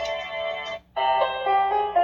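Sunrise alarm clock's built-in electronic alarm ringtones. One melody cuts off just under a second in, and after a short gap a different melody starts, as the clock steps from one ringtone to the next.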